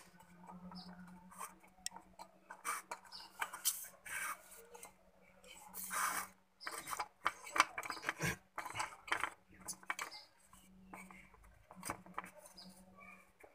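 Faint metal clicks and scraping in short, irregular bursts as a Primus camping stove is turned and screwed onto the threaded valve of a Primus gas canister, over a faint low hum.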